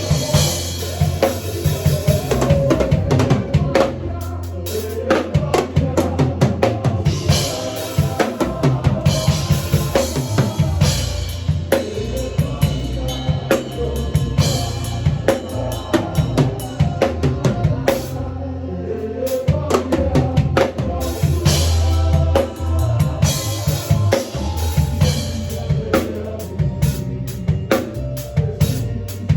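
Drum kit played in a fast, busy groove of bass drum, snare and rimshots, over sustained low notes from other band instruments.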